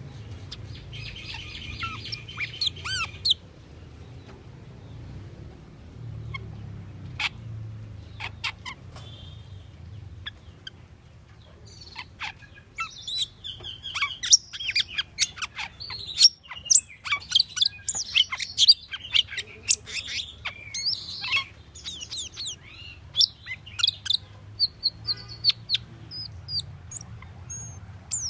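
Asian glossy starling (Aplonis panayensis) singing: scattered sharp chirps and short whistles at first, then a dense run of rapid high chirps and whistled notes from about twelve seconds in, easing after about twenty-two seconds. A low steady hum runs underneath.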